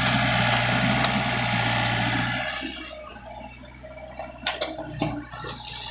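Doosan mini excavator's diesel engine working hard under hydraulic load as its bucket dumps soil into a dump truck, loud for the first two seconds or so, then easing off. A few sharp knocks follow near the end.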